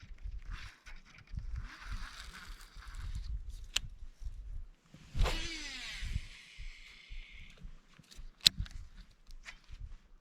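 Fishing rod and reel in use: short whirring bursts of the reel being cranked, then about five seconds in a cast whose line hisses off the reel for about two seconds, and a sharp click near the end. Wind buffets the microphone.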